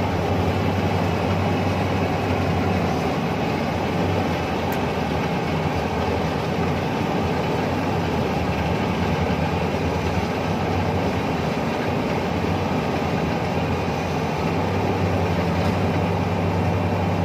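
Iseki HC80P rice combine harvester running steadily as it cuts and threshes rice: a dense mechanical clatter over a low engine hum. The hum eases through the middle and comes back strongly near the end.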